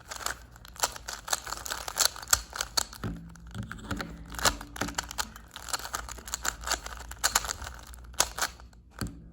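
A 3x3 Rubik's cube being scrambled by hand: rapid, irregular clicking and rattling of the plastic layers as they are turned.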